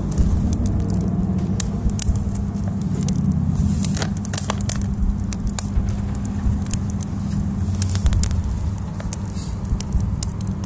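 Small wood fire of split sticks crackling, with frequent irregular pops and snaps over a steady low rumble.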